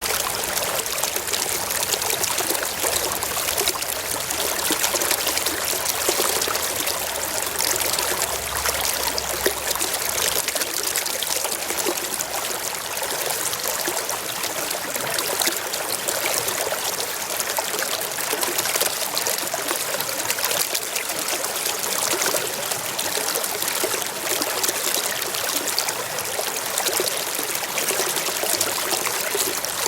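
Water flowing steadily in a stream, a continuous splashing, trickling rush.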